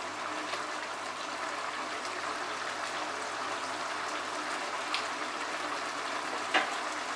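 Potato and raw papaya curry simmering in a kadai over a raised flame, its gravy reducing, bubbling with a steady, even hiss. A couple of faint taps come near the end.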